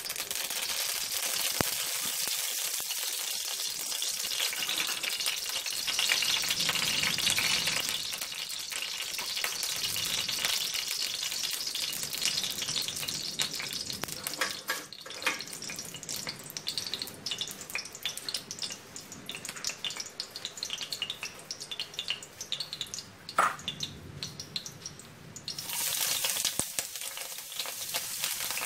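Oil sizzling and crackling in a hot wok, starting suddenly as the oil hits the pan. Near the end the sizzle grows louder as sliced ginger and garlic are dropped into the oil.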